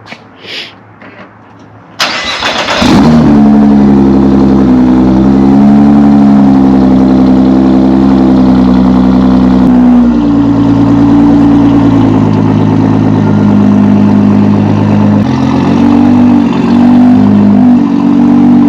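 Nissan GT-R R35's twin-turbo V6 with a full bolt-on exhaust starting about two seconds in, catching with a loud burst, then idling loud and steady, its idle note shifting slightly a few times.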